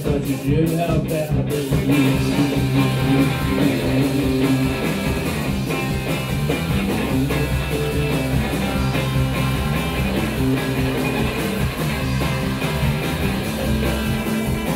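Live rock band playing an instrumental break, with guitars, keyboard and drums together and no lyrics sung.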